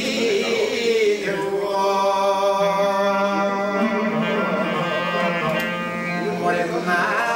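A man singing a Greek folk song (dimotiko), holding long steady notes.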